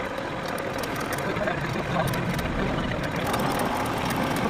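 Metal lathe running steadily, a continuous mechanical hum and rumble with faint rapid ticking.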